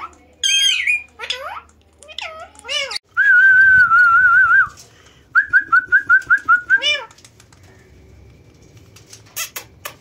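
Indian ringneck parakeets calling: a string of sharp chirps, then a long warbling whistle, then a quick run of about eight short chirps, with a couple more calls near the end.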